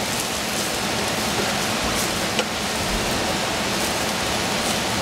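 Food sizzling steadily in a hot pan on the stove, with one brief sharp click about two and a half seconds in.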